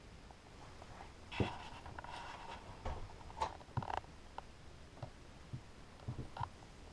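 Faint scattered knocks and clicks in a small room, the loudest a thump about a second and a half in, with a few more between three and four seconds in.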